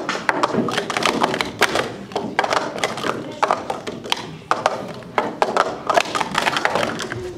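Plastic Speed Stacks cups being stacked up and down at speed by two stackers working together in a doubles cycle stack: a rapid, uneven run of sharp plastic clicks and clacks.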